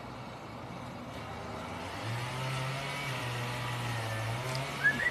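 Faint outdoor street ambience with a steady low hum that comes in about two seconds in, and a brief high chirp near the end.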